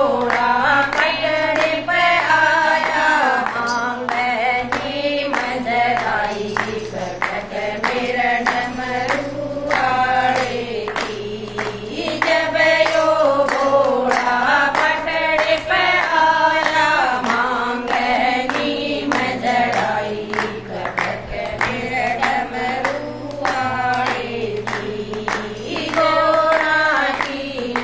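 A group of women singing a Haryanvi Shiv bhajan together, clapping their hands in a steady rhythm.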